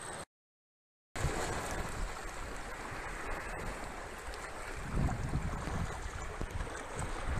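Small sea waves washing over coastal rocks, with wind buffeting the microphone in low gusts from about five seconds in. A short dead-silent gap near the start.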